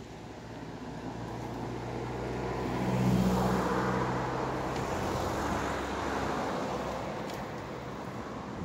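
A motor vehicle passing by: a low engine hum with road noise that swells to its loudest about three seconds in, then slowly fades away.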